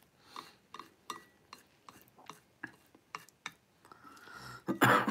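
Chopsticks clicking and tapping against a plate while picking at stir-fry noodles, about three small clicks a second, with a louder noise lasting about half a second near the end.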